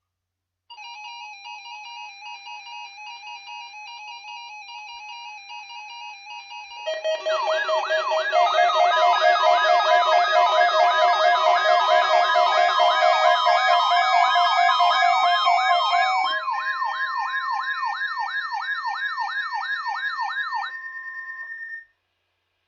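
Electronic alarm and siren tones. A rapid warbling tone runs for about six seconds. Then, louder, it is joined by several layered sirens sweeping quickly up and down over steady tones, and everything cuts off abruptly near the end.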